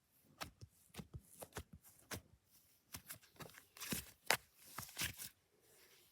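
Thick cookie dough slime being squeezed and poked by hand, making an irregular run of sharp clicks and pops that stops about five seconds in.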